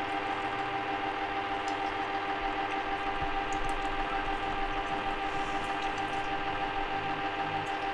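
Small chocolate fountain running: a steady motor hum made of several unchanging tones.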